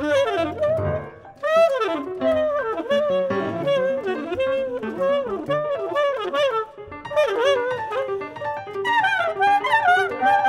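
Tenor saxophone improvising free jazz in fast runs of notes that bend and slide in pitch, with piano notes sounding beneath it.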